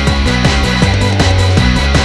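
Loud, driving rock or metal music with heavy distorted guitars and a steady, fast beat.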